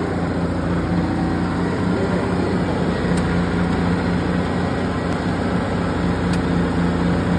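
Allis-Chalmers farm tractor engine running steadily at a constant speed, with an even low pulsing note.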